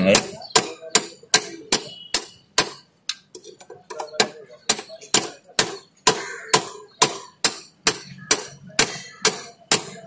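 Steady hammer blows on a steel socket and extension bar, about two and a half a second, each with a short metallic ring, tapping a new bush into the scooter's rear shock-absorber mount in the cast engine casing until it seats evenly.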